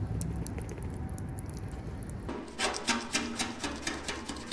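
Water draining out of a flushed aluminum fuel tank onto a concrete floor. A little past halfway this gives way to quick, scratchy rubbing strokes of a gloved hand scrubbing the tank's cracked seam clean before welding.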